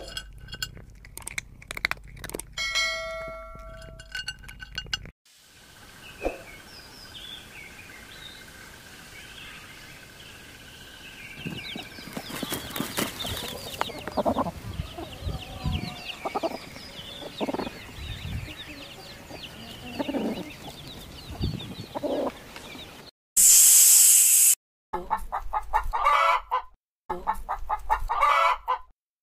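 A hen clucking low and irregularly while her chicks peep in many short high calls, followed near the end by a rooster calling. A loud burst of noise lasting about two seconds comes just before the rooster and is the loudest thing.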